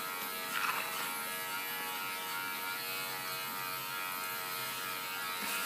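Electric hair clippers buzzing steadily while trimming a small dog's fur.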